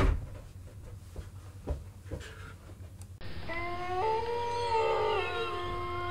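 A few knocks and thumps in a room, the loudest right at the start. About three seconds in, the sound cuts to a cartoon soundtrack played from a screen and picked up by the camera's microphone: long held tones at several pitches that shift in steps.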